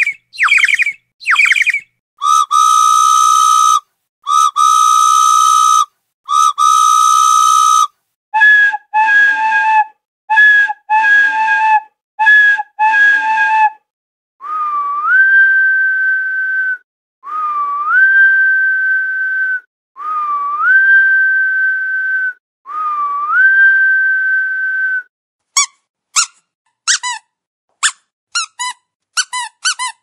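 A sequence of whistle sound effects. It opens with three quick falling whistles and three long steady whistle tones of about two seconds each. Then comes a run of short two-note beeps, four whistles that each slide up and hold for about two seconds, and near the end a rapid flurry of short chirping whistles.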